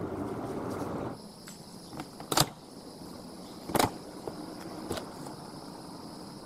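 Sharp clicks of an aluminium motorcycle pannier's key lock and latch being worked open: one about two and a half seconds in, a louder one near four seconds, and a lighter one near five, over a steady high insect whine. In the first second a steady rushing noise plays, stopping suddenly.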